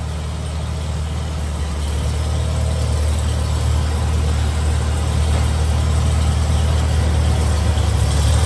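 Antique farm tractor engine idling with a steady low hum, growing gradually louder.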